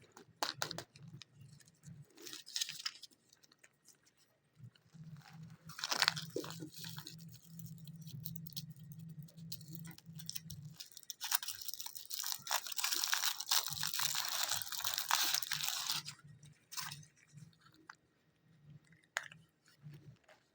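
Crinkling and crackling of wrappers as surprise eggs are unwrapped, in short bursts with clicks. There is a longer stretch of steady crinkling a little past the middle.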